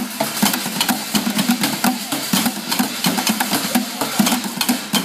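Junk-percussion drumming: several players beating sticks on plastic barrels and metal cans in a fast, steady rhythm of many sharp strikes.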